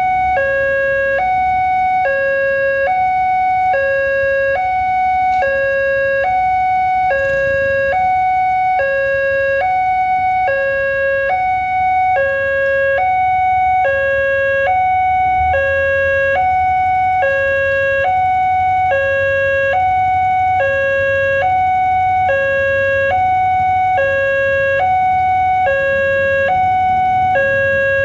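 Electronic warning bell (genta) of a railway level crossing sounding its alarm, a higher and a lower tone alternating evenly at about one pair a second, the signal that a train is approaching. A low rumble of waiting road traffic runs underneath.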